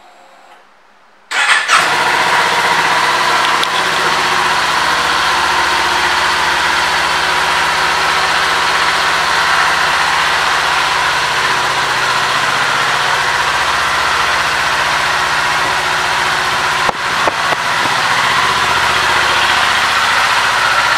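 Kawasaki Z400's 399 cc parallel-twin engine starting about a second in, catching at once, then idling steadily.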